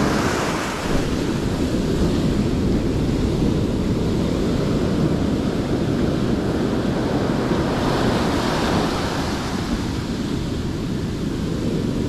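Ocean surf breaking and washing up the beach, with wind buffeting the microphone as a steady low rumble. The wash swells near the start and again about eight seconds in.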